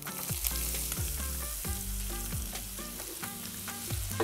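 Chopped onions sizzling in a hot pan of spiced clarified butter as they go in and are stirred, the hiss starting as they hit the fat. A beat-driven music track plays underneath.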